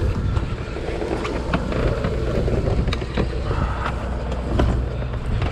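Sportfishing boat's engine running with a steady low hum, wind buffeting the microphone, and a few small knocks.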